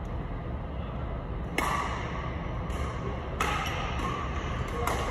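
Badminton rackets striking a shuttlecock in a rally: about four sharp, crisp hits roughly a second apart, starting about a second and a half in.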